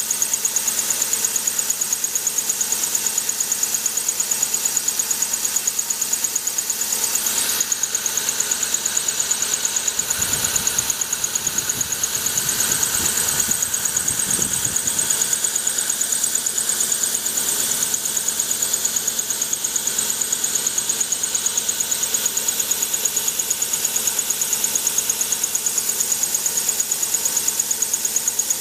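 CNC thread whirling machine cutting a large-pitch worm thread, the whirling cutter ring spinning around the turning shaft: a steady high whine with a fast regular pulse. A deeper rumble comes in about ten seconds in and dies away around fifteen seconds.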